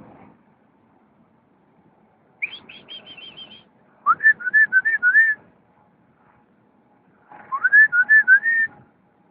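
Whistled calls in three phrases: a quick run of about six high notes, then two warbling phrases that each glide up and then flutter.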